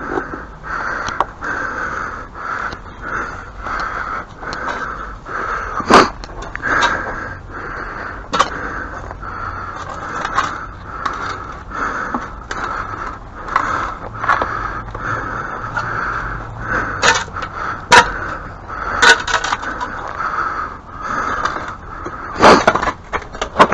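Digging by hand: a tool scraping repeatedly through dirt, with several sharp knocks as it strikes something hard.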